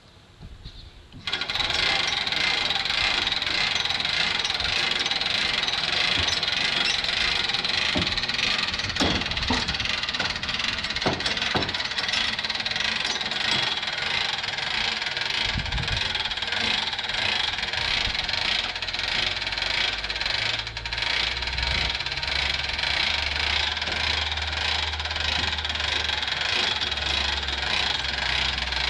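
Trailer winch running steadily as it pulls a car up onto the trailer deck, starting abruptly about a second in with a fast, even mechanical rattle. A lower hum joins in about two-thirds of the way through.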